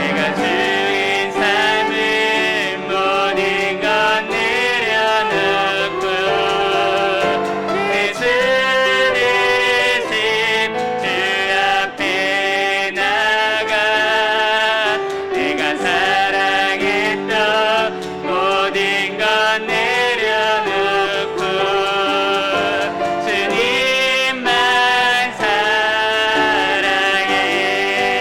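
Worship song sung by vocalists over piano accompaniment: a continuous, steady-paced sung melody.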